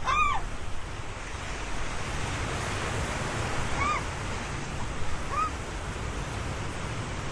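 Ocean waves breaking and washing, a steady surf. Three short calls that rise and fall in pitch cut through it: one at the start, two more about four and five and a half seconds in.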